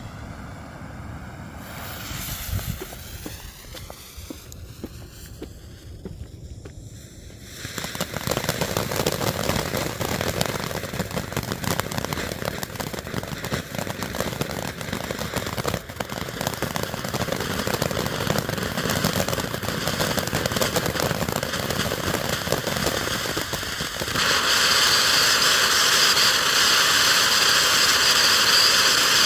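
Weco Ocean of Lights firework fountain spraying sparks: a steady rushing hiss with crackling that sets in about eight seconds in and steps up louder near the end.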